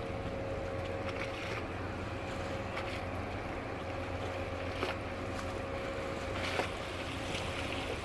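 Steady low machinery hum from a huge Ever Golden-class container ship passing close, with a faint steady tone above it. Wind buffets the microphone, and there are a few faint splashes or ticks.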